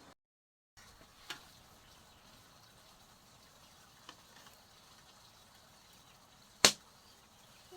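Three short, sharp knocks over faint background noise, the last and loudest about two-thirds of the way through.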